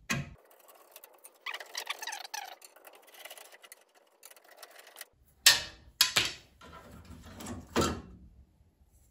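A screwdriver backs out the small Phillips screws of a car's headlight retaining ring, with faint scraping and rustling. From about halfway through come a few sharp clicks and knocks as the loosened ring and screws are handled.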